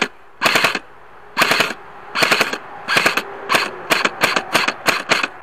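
Specna Arms SA-A08 airsoft electric rifle firing about ten short full-auto bursts, each a quick rattle of several shots. The bursts get shorter and come closer together in the second half.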